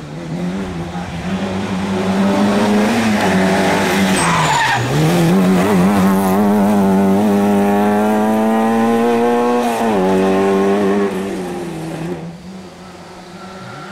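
Peugeot 205 rally car's four-cylinder engine at high revs as it passes. The pitch climbs, dips sharply for a moment about four and a half seconds in, then climbs again and is held high until the driver lifts off at about ten seconds. The engine note then fades away.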